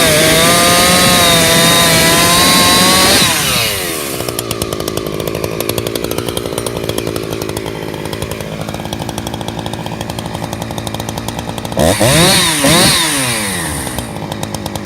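Husqvarna 359 two-stroke chainsaw with an opened-up muffler at full throttle, its revs wavering under load as it cuts hard, dry crab apple wood. About four seconds in it drops to a pulsing idle. Near the end it is blipped twice, up and back down, then idles again.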